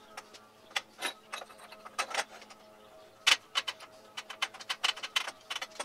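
Irregular metallic clinks and knocks of a black iron pipe burner assembly being handled against a steel table, the loudest about two and three seconds in, over a faint steady hum.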